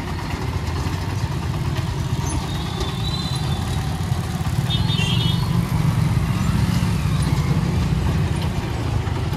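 Motorcycles, scooters and a small pickup truck crossing at low speed, their small engines running in a steady low rumble.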